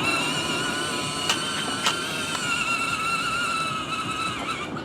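Electric drive motor of a ride-on toy Mercedes car whining steadily as the car is driven by remote control, with a couple of light clicks; the whine dies away just before the end.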